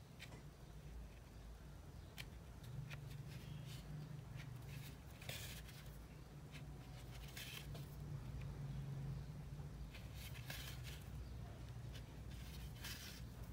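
Faint handling noise: soft rustles and scattered light clicks from hands working a tapestry needle through crochet stitches in cotton yarn, over a low steady background hum.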